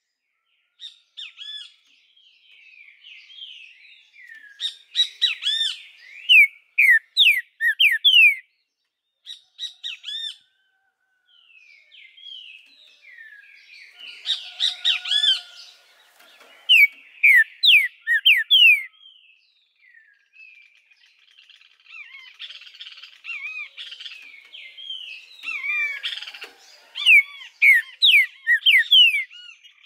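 Green-winged saltator (trinca-ferro) singing: phrases of short, quick slurred whistles, some loud, repeated with pauses between them and softer chattering notes in the gaps.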